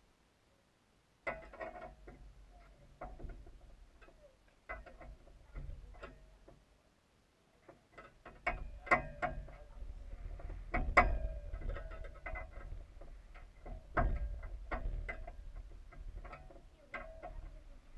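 Irregular clicks and knocks on the camera, then, from about halfway, rustling and bumping as cloth presses against it, with a couple of louder knocks.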